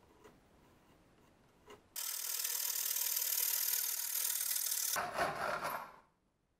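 Hand saw cutting a maple board clamped in a vise: a steady rasping starts suddenly about two seconds in, turns rougher and fuller about five seconds in, and stops about a second later.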